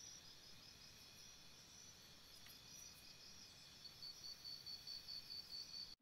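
Faint insects chirping in a regular rhythm, about four high chirps a second, over a steady higher hum.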